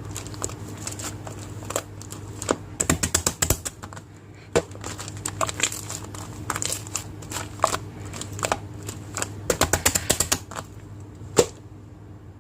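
Marbled slime being squeezed and stretched by hand, giving sharp sticky clicks and pops, in quick runs about 3 s and 10 s in, with one loud pop near the end. A steady low hum lies underneath.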